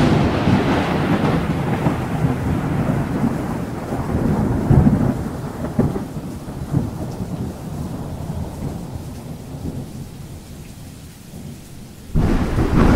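Thunderstorm: a clap of thunder rumbling over steady rain and slowly fading, then another loud thunderclap near the end.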